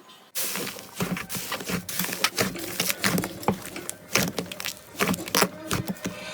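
Slime being squeezed and poked by hand, giving a dense, irregular run of sticky pops and clicks that starts about a third of a second in.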